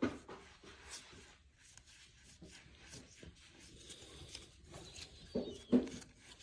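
Baseball cards being flipped through in the hands: card stock sliding and rubbing against card, with light clicks as each card is moved to the back of the stack, and a couple of louder ones about five and a half seconds in.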